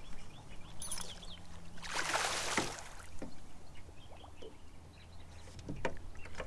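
A splash of water about two seconds in, with a few light clicks and a faint low steady hum.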